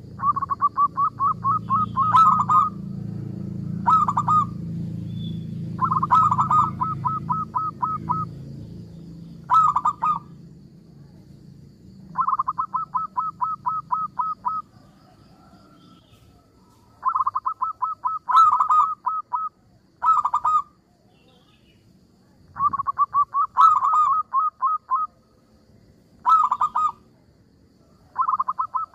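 Zebra dove (perkutut) calling in repeated bouts of quick staccato notes, about five notes a second, with longer phrases alternating with short ones and pauses between them.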